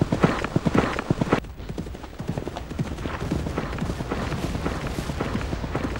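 A horse galloping, its hoofbeats rapid and close. About a second and a half in they drop suddenly to fainter, more distant hoofbeats that carry on for the rest of the time.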